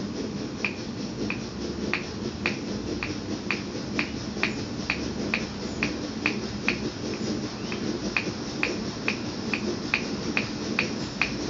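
Hand pump on a liquid-fuel bottle being stroked about twenty times to raise the bottle's pressure, a short sharp click about twice a second. Underneath, the Brunton Vesta stove's diffuser-type burner hisses steadily.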